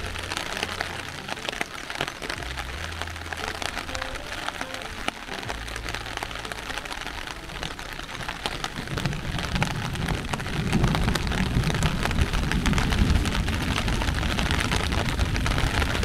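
Heavy rain pelting down, dense with drop impacts. From about halfway through, a deep low rumble builds and the whole sound grows louder.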